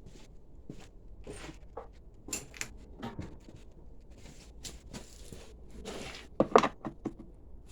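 Scattered clicks, scrapes and knocks of hand tools working a 10 mm bolt loose on a Yamaha WR450F motorcycle, with one sharp metallic clack about six and a half seconds in.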